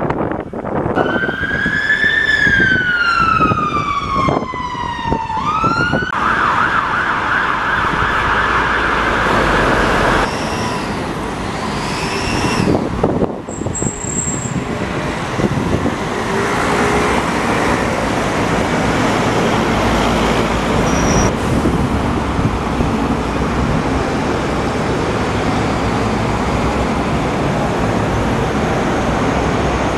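Emergency vehicle siren: a long falling wail, then a fast warbling yelp, dying away about thirteen seconds in. Steady road traffic noise underneath and afterwards.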